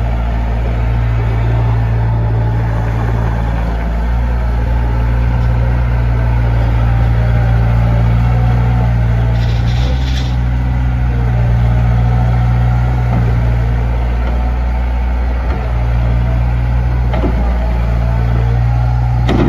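Bobcat 853 skid steer's 58 HP Isuzu diesel engine running steadily, with a brief hiss about ten seconds in.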